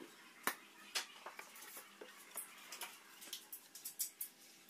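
Light knocks and clicks of plywood sheets and a plastic glue bottle being handled on a workbench: two sharper knocks near the start, then a scatter of small ticks as a plywood panel is laid down and shifted into place.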